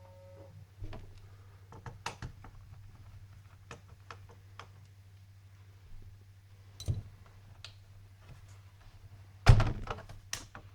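Clicks and light knocks of a screwdriver and the plastic case parts of a laptop being worked loose and handled during disassembly, with a loud thunk about nine and a half seconds in and another knock just after.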